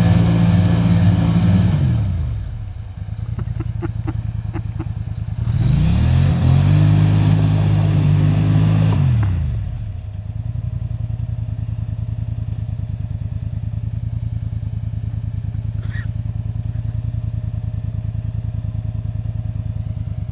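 Polaris ATV engine revving hard while the quad sits stuck in a mud hole, dropping off about two seconds in, revving again for about four seconds, then settling to a steady idle.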